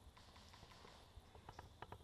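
Near silence in the woods, with a few faint, sharp clicks in quick succession near the end.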